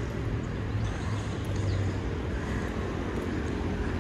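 A motor vehicle's engine running with a steady low hum, over street traffic noise.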